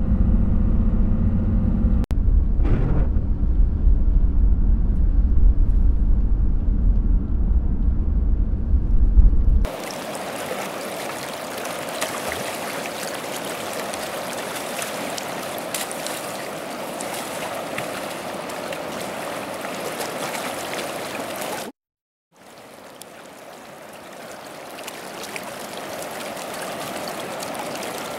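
Steady low rumble of a vehicle cabin while driving, for about the first ten seconds. It then gives way to the even rushing of the Kenai River flowing past the bank, which drops out briefly about two-thirds of the way in and fades back up.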